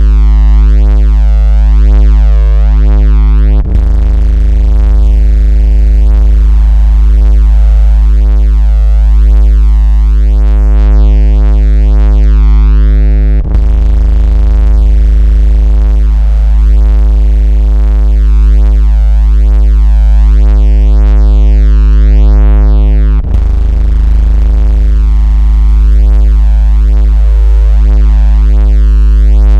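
Loud, steady synthesized 56 Hz bass tone with a buzzy stack of overtones, a 'vibration' sound made to shake a phone and push water out of its speaker. It drops out briefly with a click three times, about every ten seconds.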